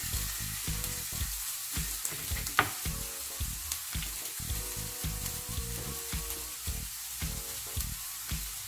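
Sliced red onion, garlic and habanero chiles sizzling steadily as they sauté in olive oil in a frying pan. Occasional knife taps come from a mango being diced on a wooden cutting board.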